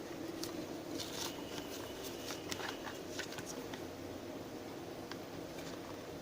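Faint light clicks and rustling from handling plastic polycarbonate safety goggles, scattered over a steady low room hiss.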